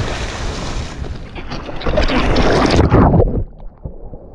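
Wind on an action camera's microphone over choppy sea, then loud splashing and sloshing of seawater as the camera is dunked at the surface, about a second and a half in. Near the end the sound drops suddenly and turns muffled.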